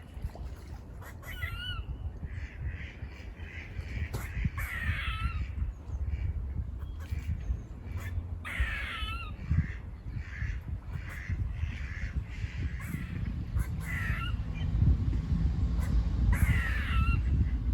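Squirrel alarm calls: runs of short barks at about three a second, broken several times by longer, wavering buzzy calls that fall in pitch. A low rumble underneath grows louder in the second half.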